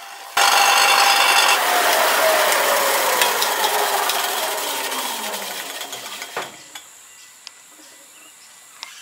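Bench-top combination belt and disc sander running, sanding a small wooden lure body. About a second and a half in it is switched off and coasts down, its whine falling in pitch for several seconds before it stops with a knock.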